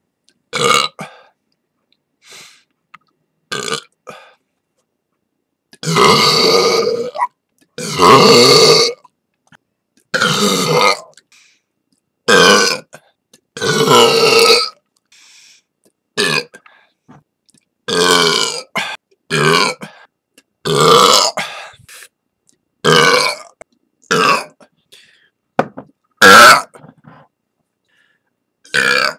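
A person burping again and again: about twenty separate loud burps of varied length, from short croaks to long drawn-out ones of a second or more, with silent gaps between them.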